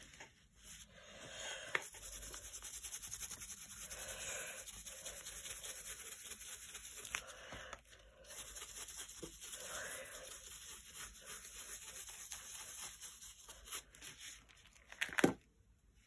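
A stiff, cut-down paintbrush rubbing white acrylic paint through a stencil onto a glossy book page: steady brushing with a fine rapid texture, and a sharp knock near the end.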